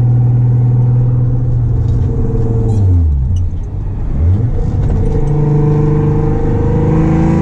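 Car engine running while driving. The revs fall about three seconds in, then climb again and hold steady.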